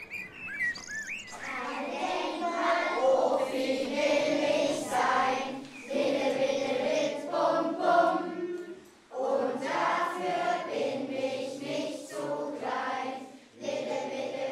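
A group of children singing together in unison, in phrases with short breaks between them. A bird chirps briefly at the very start.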